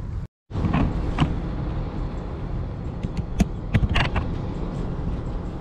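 Motorboat engine running under a steady low rumble, with wind buffeting the microphone and a few short knocks. The sound cuts out briefly near the start.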